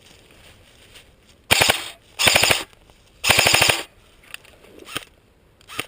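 Airsoft gun firing three short rapid-fire bursts in quick succession, each a fast rattle of about half a second.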